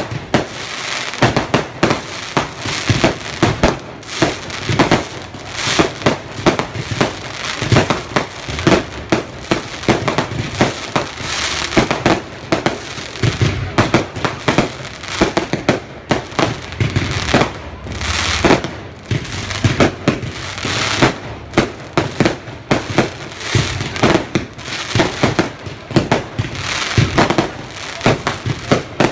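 Fireworks display: a dense, unbroken string of bangs and crackles, several a second.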